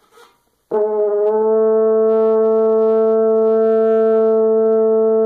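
French horn sounding one long, steady note, a written E, that begins about a second in with a slight wobble in pitch and then holds level. It is the steady tone that comes from full air behind the buzz.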